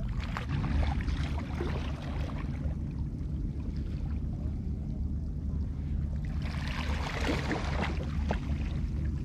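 Low, steady rumble of wind and choppy sea at a rocky shoreline, with a brief louder rush of noise and a few clicks about seven seconds in.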